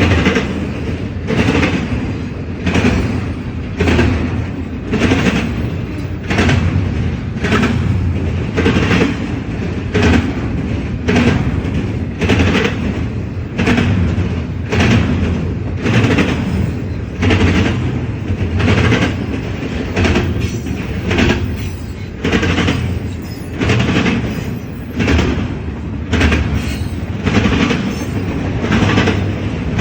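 A long CSX freight train rolling past, its car wheels clattering over the rail joints in a steady rhythm, about three clacks every two seconds, over a constant low rumble.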